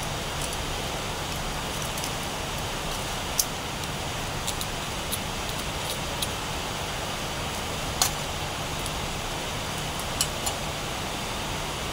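Scattered sharp clicks and snips from electrical cable being cut and handled, over a steady background hiss and hum. The loudest clicks come about three and a half and eight seconds in.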